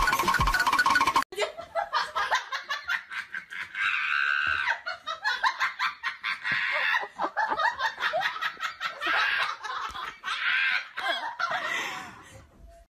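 A person laughing hard and high-pitched in quick repeated bursts, from about a second in until it fades near the end.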